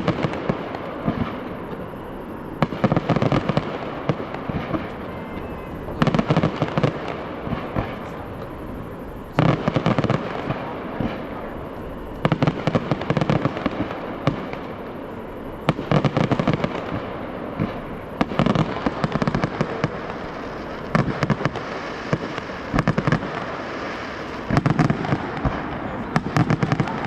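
Fireworks show: aerial shells bursting with a boom every two to three seconds, each followed by dense crackling.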